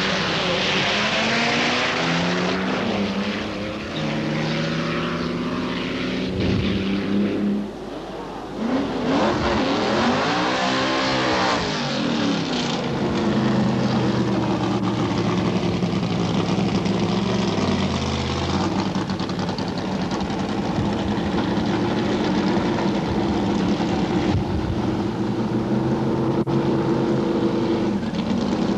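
Supercharged drag-racing engines running and revving, their pitch stepping up and down. About ten seconds in, one engine's note rises sharply and falls away again.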